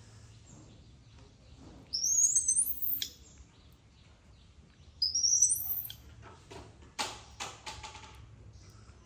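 Two high-pitched, upward-sweeping squeaky animal calls, each about a second long and about three seconds apart, followed by a few quick clicks.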